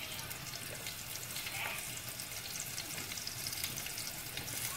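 Oil sizzling and crackling steadily in a small nonstick saucepan on a gas burner, with a few chopped white pieces frying in it.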